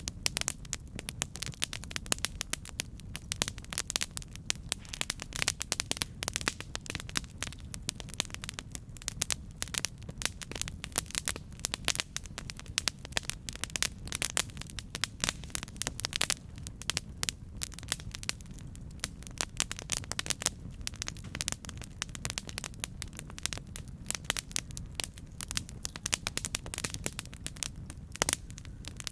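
Campfire burning, with dense, irregular crackling and popping of wood over a steady low rumble of the flames.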